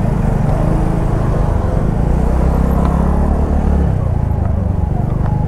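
TVS Ntorq scooter being ridden: a steady low engine and road rumble. In the last second and a half a wavering tone rises and falls several times.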